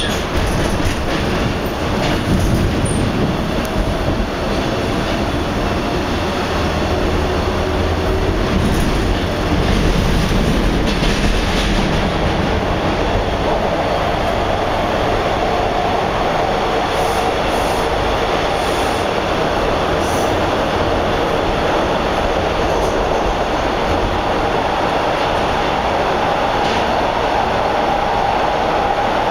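Inside a Toronto subway car (Bombardier T1) under way: a steady loud rumble of wheels on rail with occasional clicks. A faint whine slowly rises in pitch and grows stronger in the second half.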